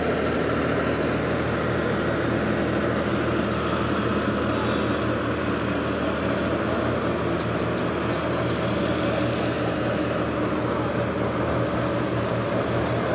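John Deere 5310 tractor's three-cylinder diesel engine running steadily as it pulls a loaded PTO trolley, a constant low drone.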